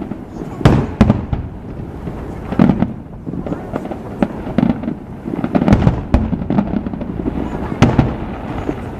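Aerial fireworks bursting in an irregular string of sharp bangs, several to a second at times, over a continuous low rumble, with crowd voices underneath.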